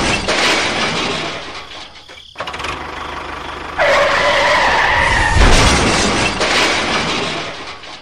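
Loud crash and skid noise as a toy train collides with a loaded trailer and derails. It breaks off briefly about two seconds in, and a steady horn-like tone sounds over the noise for about a second and a half from about four seconds in, before fading near the end.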